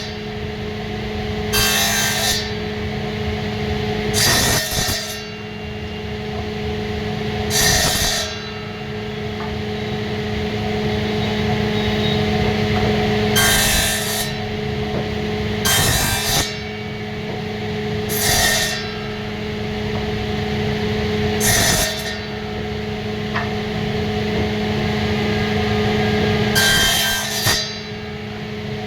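A hand tool working wood, with about eight short scraping strokes spaced irregularly a few seconds apart, over a steady low hum.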